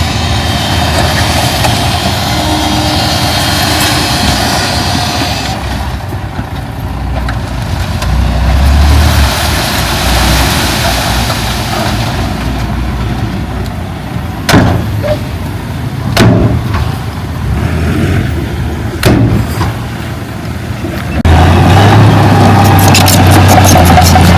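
Diesel engines of heavy earthmoving machinery running steadily, with the engine sound changing abruptly a few times. A few sharp knocks come in the second half, and a louder, deeper engine takes over near the end.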